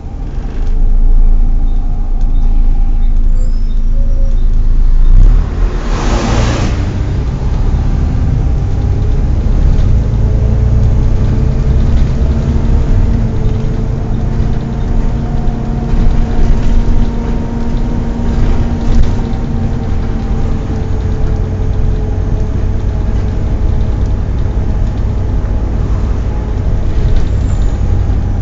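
Volvo B7TL double-decker bus's six-cylinder diesel running with a steady low rumble, overlaid by a hoover-like whine that drifts slowly up and down in pitch: the strange noise of its engine cooling fan. A short hiss of air comes about six seconds in.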